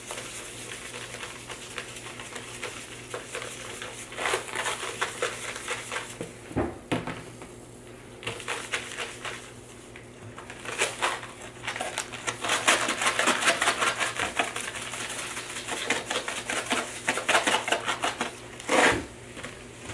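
Canning and pickling salt poured from its cardboard box into a plastic storage container: a grainy, crackling hiss of falling salt that comes in spells and runs most steadily in the latter half. Two short dull knocks stand out, one about a third of the way in and one near the end.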